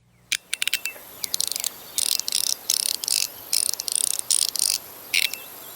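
Small metal fidget slider being slid back and forth: a quick run of sharp clicks, then repeated short sliding bursts, each about a third of a second, with clicks between.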